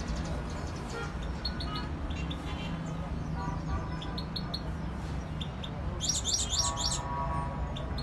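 Caged canaries chirping in short, high phrases, with a louder rapid trill about six seconds in, over a steady low traffic rumble.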